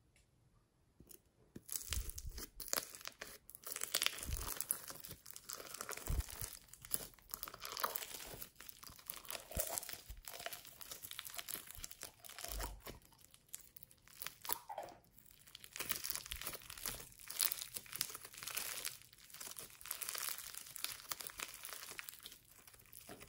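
Green floam, slime packed with small foam beads, being squeezed and stretched by hand: a dense crunching and crackling of the beads, starting about a second and a half in.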